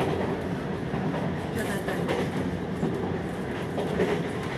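Running noise inside a Taiwan Railways local train carriage at speed: a steady rumble of the wheels on the track.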